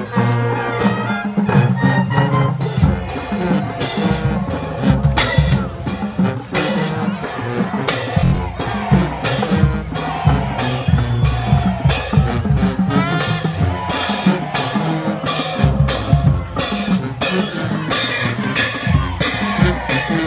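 High school marching band playing: brass led by sousaphones, trumpets and trombones over a drumline of snare, tenor and bass drums with crash cymbals, drum strikes keeping a steady beat.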